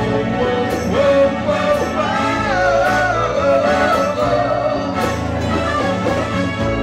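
Live band playing a song: guitars, hand drums and keyboard over a steady beat, with a wavering lead melody standing out between about two and four and a half seconds in.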